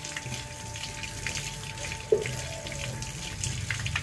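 Water trickling and splashing in the background with many small irregular drips, under soft background music with long held notes; a single knock about two seconds in.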